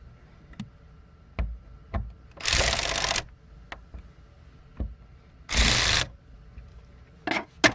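Screws being driven into a fuel-pump lock ring in two short bursts, about two and a half and five and a half seconds in, with light clicks and taps between and a few quick bursts near the end.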